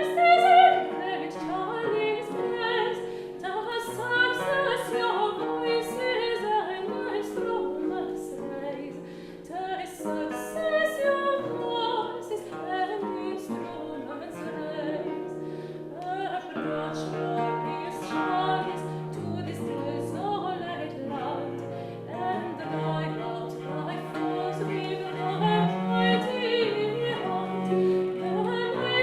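Baroque chamber music on period instruments: a woman's voice with traverso, violin, viola da gamba, and plucked Celtic harp and theorbo.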